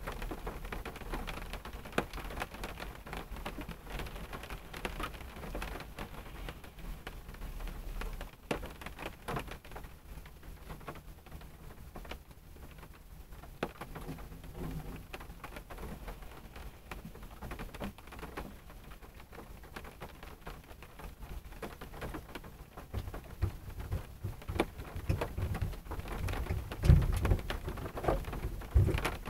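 Rain falling on a car's roof and windshield, heard from inside the car: a soft patter with many scattered single drop ticks. A low rumble swells over the last few seconds.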